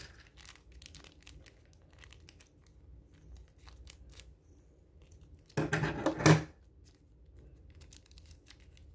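Small plastic blind-bag wrapper crinkling as it is handled and cut with scissors, with one loud rip a little past halfway as the bag is torn open.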